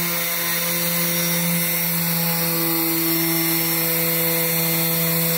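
Electric orbital hand sander running steadily against a wooden board, a constant motor hum with a steady whine over the scratch of the sandpaper.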